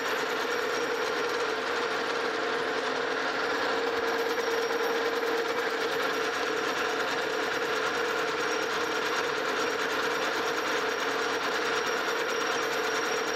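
Metal lathe running steadily, spinning a cast iron pulley blank on a mandrel, with a constant mid-pitched hum from its drive.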